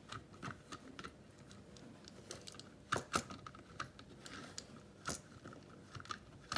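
Light, irregular plastic clicks and clacks from a Lego Space Rocket Ride's brick crank mechanism as its handle is turned, rocking the rocket up and down. A few louder knocks come about three and five seconds in.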